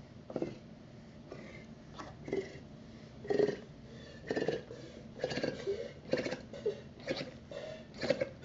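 Air blown through straws into slime: irregular wet gurgles and pops as two slime balloons inflate, coming more often after about three seconds.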